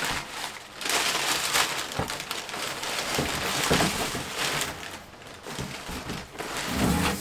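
Parcel packaging being torn open and crinkled by hand, a dense crackling rustle that eases off near the end.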